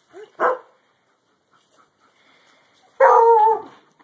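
Alaskan Malamute puppy barking: a short yip just under half a second in, then a longer, louder pitched bark about three seconds in that drops in pitch at the end.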